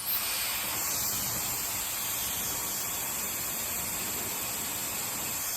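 Techmeri high-speed hair dryer switched on: its motor whines quickly up in pitch, then it blows with a steady, even hiss of air.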